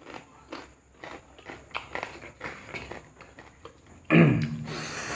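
Close-up chewing of food, with short crunches every fraction of a second. About four seconds in comes a louder, brief sound from the eater's voice.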